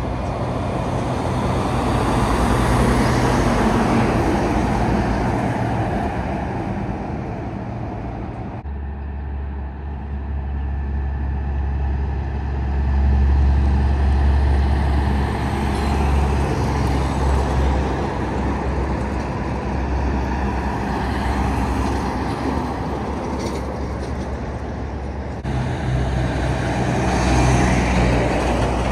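Diesel road trains, prime movers hauling multiple trailers, driving by on a street: a steady low engine drone that swells as each truck approaches. Three separate passes follow one another, with abrupt changes in the sound about nine seconds in and again a few seconds before the end.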